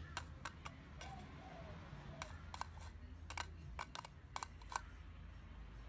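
Australian magpie's beak pecking and tapping at an upturned clear plastic bowl: about a dozen sharp, irregular clicks that stop a little over halfway through.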